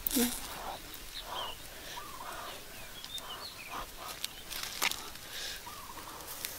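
Scattered small pops and crackles from the embers the fish are roasting over, with birds chirping and calling in the background.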